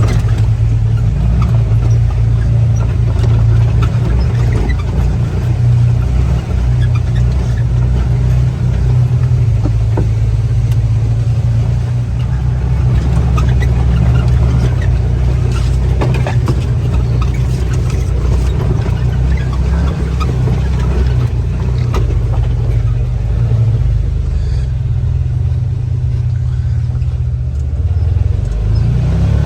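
Side-by-side UTV engine running steadily at an even, low pitch, with a few scattered knocks.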